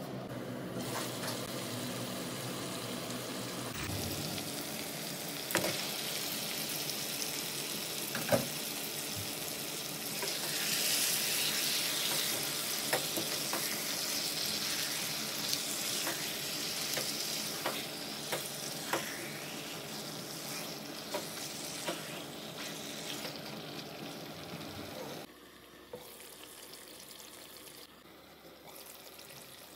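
Curry masala and then raw mutton pieces sizzling in a nonstick wok, stirred with a spatula that knocks now and then against the pan. The sizzle is brightest for several seconds after the meat is in, and about 25 seconds in it drops to a quieter simmer under a glass lid.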